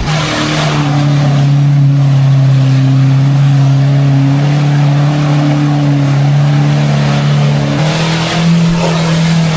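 Off-road pickup truck's diesel engine held at steady high revs under heavy throttle, its pitch stepping up slightly about eight seconds in.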